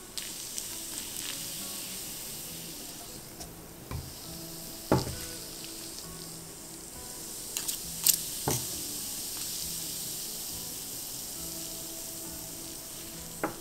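Polystyrene packing peanuts hissing steadily as they dissolve in 100% acetone, with a few sharp pops and clicks, the loudest about five and eight seconds in.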